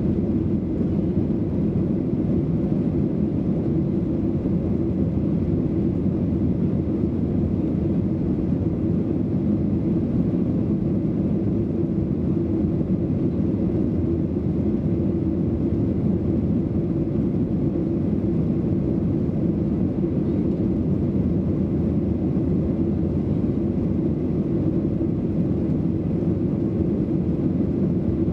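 Steady engine and airflow noise of a passenger airplane heard from inside the cabin as it climbs after takeoff, a deep unchanging drone.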